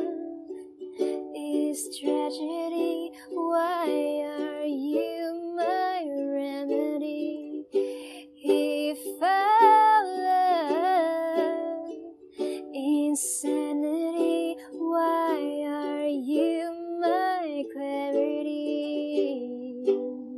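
Ukulele cover music: sustained ukulele chords with a wordless melody line above them that slides up and down in pitch.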